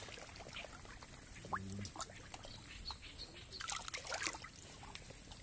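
Quiet wading through a flooded water spinach patch: leaves rustling and water trickling and sloshing around the legs, with a cluster of louder swishes a little under four seconds in.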